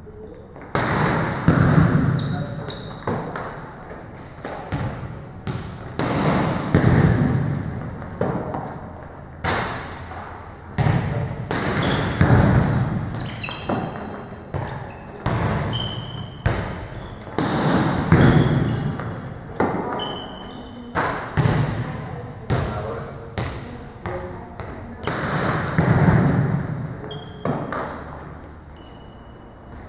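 Volleyballs being dug: a run of sharp smacks of forearms on the ball and balls bouncing on a hard gym floor, every second or so, echoing in a large hall.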